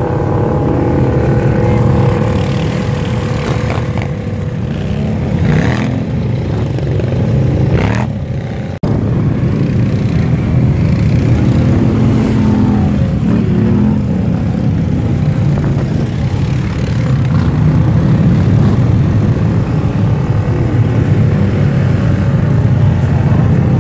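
Engines of ATVs and other off-road vehicles running, heard from a moving ATV. There is a brief break about nine seconds in.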